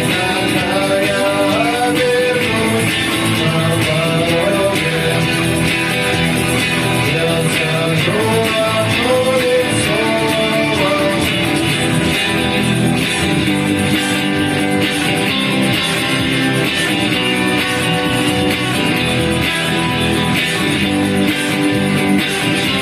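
Music: guitar playing with a singing voice over it, steady throughout.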